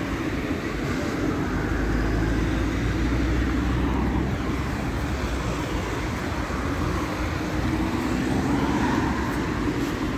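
Steady din of an IMO Softline tunnel car wash at work: rotating brushes scrubbing and water spraying, over a motor hum. A deeper rumble swells from about 1.5 to 4 seconds in.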